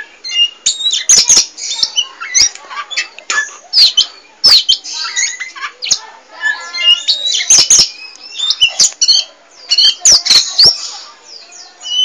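Oriental magpie-robin (kacer poci) singing without pause: a varied, chattering run of loud whistles, chirps and harsh rasping notes. Sharp clicks are mixed in throughout.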